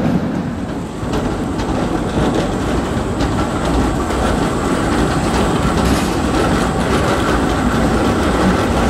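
Škoda 15T low-floor tram passing close on curved street track, wheels rolling with a rapid clacking over rail joints and points. A faint steady high tone joins about three seconds in.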